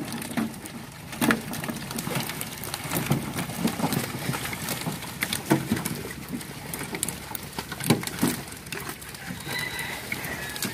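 Live catfish flopping and slapping on a perforated metal sorting tray, with irregular wet slaps and knocks as they are handled by gloved hands.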